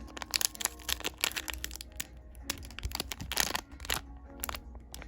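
Blind-box packaging crinkling and rustling in short bursts with small clicks as a figure is unwrapped by hand.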